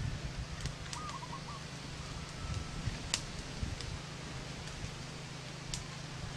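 Small wood fire crackling a few times with sharp snaps, the loudest about three seconds in, over a low steady rumble. A short bird call sounds about a second in.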